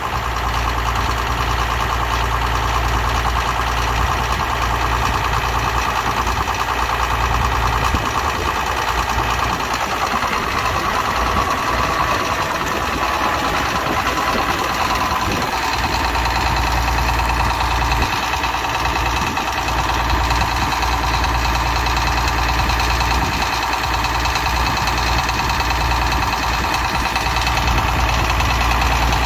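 Farmall 560 Diesel tractor's four-cylinder diesel engine idling steadily.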